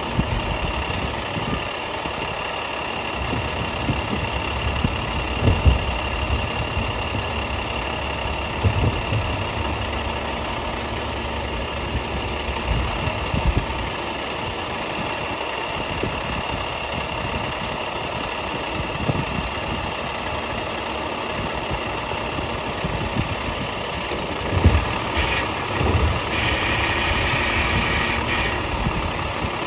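International garbage truck's diesel engine idling steadily, with a few separate knocks and thumps. About 25 seconds in the sound grows louder and busier as the Heil side-loader's hydraulic arm starts to work.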